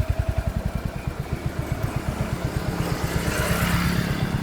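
Motorcycle engine idling with a steady, rapid low putter while parked at the roadside, with a brief swell of louder noise about three seconds in.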